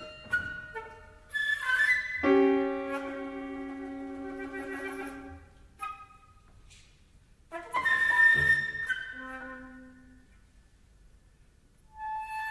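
Flute and piano playing a sparse modern chamber piece: sharp short flute and piano figures, a chord left to ring and fade, and near-quiet pauses between, with a new held flute note near the end.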